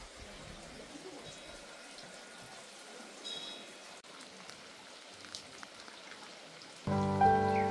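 Faint steady patter and trickle of water, then instrumental music with sustained notes comes in loudly near the end.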